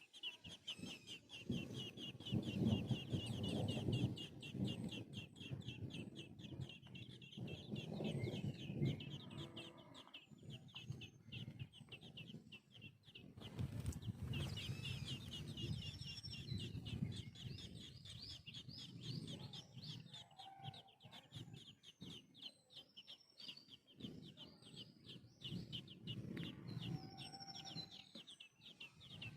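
Baby birds peeping rapidly and continuously in high, thin calls, typical of chicks begging for food, with a pause about a third of the way through. Louder low-pitched noise runs underneath.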